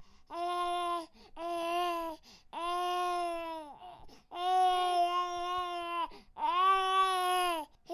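Baby crying in five wails with short breaths between them. The two wails in the second half are the longest and loudest.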